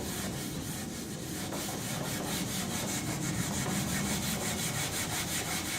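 Abrasive sponge scrubbing stained white plastic coated with cleaning product, in rapid, even back-and-forth strokes that lift out the absorbed dirt.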